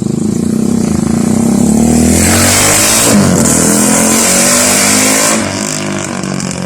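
Thai-concept custom motorcycle with a Rusi engine running hard at high revs, its exhaust adding a hissy rasp in the middle, with a brief dip in pitch about three seconds in and easing off slightly near the end.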